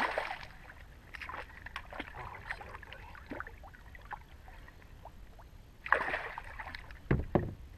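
Faint splashing and lapping of shallow water as a hooked fish thrashes and is unhooked at the water's edge. There is a short splash about six seconds in and a low thump just after it.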